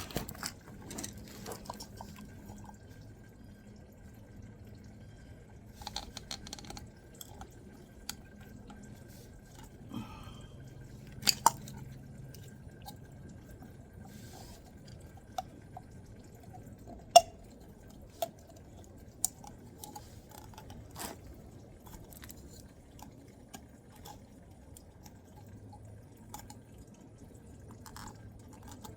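Engine oil dripping into a drain pan: irregular, widely spaced drips, a few of them much louder, over a faint low hum.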